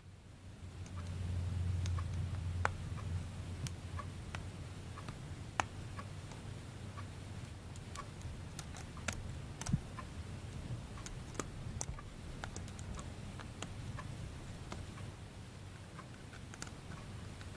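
Plastic K'nex pieces being handled and snapped together: irregular sharp clicks, a few louder, over a low steady hum.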